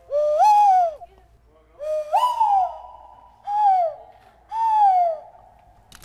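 Nose flute played in four whistled notes, each sliding up in pitch and then falling away; the second is the longest.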